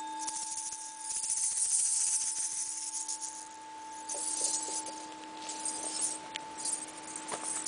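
A brass singing bowl keeps ringing with two steady tones, while bursts of shaken jingling and rattling come and go, with a few light taps on a small hand drum around the middle.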